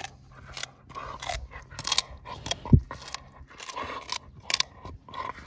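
A pit bull biting and chewing a wooden stick, the wood cracking and splintering in irregular crunches, with one heavier thud about halfway through.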